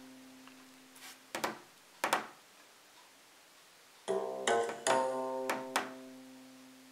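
Instrumental music played through the Altec Lansing Mini H2O, a small Bluetooth speaker. Chords ring out and fade, a fresh group is struck about four seconds in, and a few sharp percussive hits fall in between.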